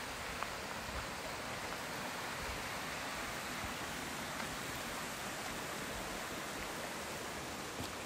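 Steady rush of a mountain stream and its waterfalls, an even hiss of running water without a break.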